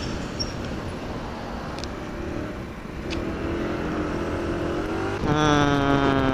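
Small 50cc moped engine revving up, its pitch climbing and then jumping louder and holding high near the end, over steady wind noise on the microphone.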